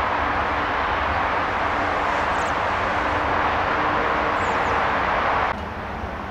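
Steady noise of passing traffic, which drops off abruptly about five and a half seconds in.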